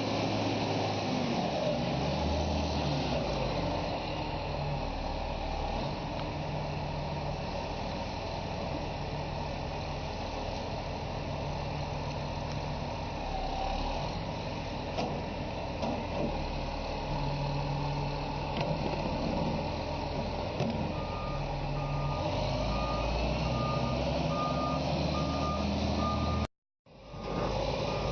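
Heavy truck engine running, its pitch rising and falling. About three quarters of the way in, a reversing alarm starts beeping at an even pace. The sound cuts out for a moment near the end.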